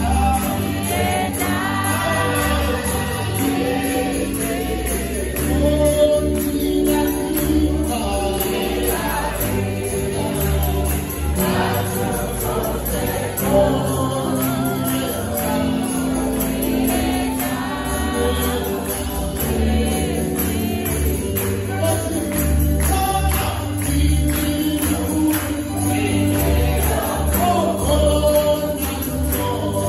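Church congregation singing a Chichewa hymn together as a choir, with hand clapping.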